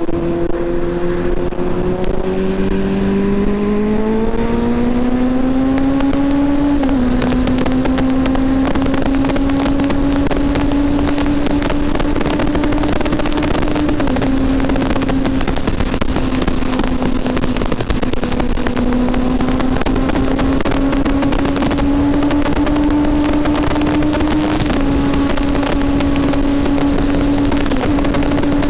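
Kawasaki Z800's inline-four running through a Two Brothers Tarmac exhaust with the baffle removed. It pulls up steadily in pitch over the first several seconds, then holds a nearly steady speed with small changes in pitch, with wind rushing past.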